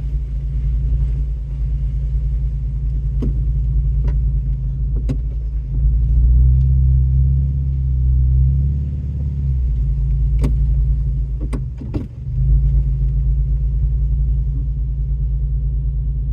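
Truck engine running steadily at low revs, heard from inside the cab, with a stretch of heavier throttle from about six to nine seconds in. Several sharp knocks stand out above it, the loudest cluster around ten to twelve seconds in.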